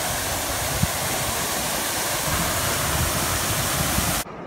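Fountain jets splashing down into a pool: a steady hiss of falling water that cuts off suddenly about four seconds in.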